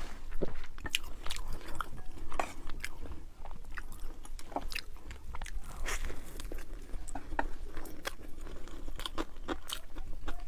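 A person biting and chewing crunchy food, with irregular crisp crunches throughout.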